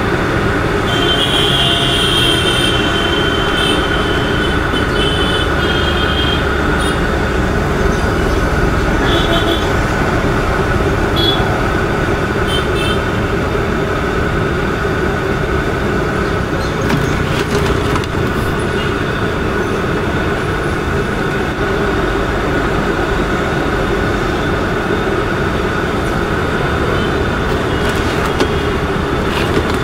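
Stuffed mussels deep-frying in a pan of hot sunflower oil, with a loud, steady sizzle. A few brief high tones come in over the first several seconds.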